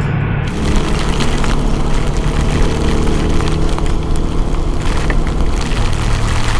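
Single-cylinder engine of a TVS Apache RTR 200 4V motorcycle running under way, its pitch shifting slightly as the throttle changes, with wind noise over the microphone that grows louder about half a second in.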